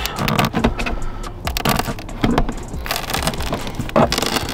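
Adhesive-backed LED light strip being peeled off the plastic under-dash trim by hand, giving an irregular crackling and tearing as the glue lets go.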